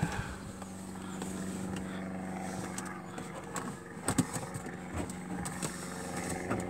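Hand fumbling with the bonnet release under the dashboard of a 1967 Lotus Elan, with a few sharp clicks, the clearest about four seconds in, as the release is worked, over a steady low hum.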